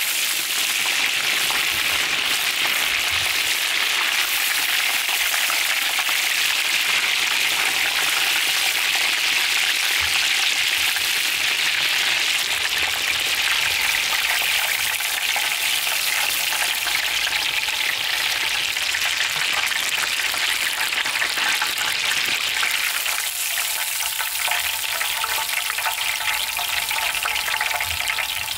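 Breaded pork cutlets (donkatsu) deep-frying in hot oil: a steady, even sizzle throughout.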